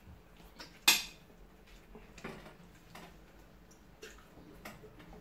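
A metal spoon clinking and scraping on a ceramic plate of rice: scattered light clicks, with one sharp clack about a second in.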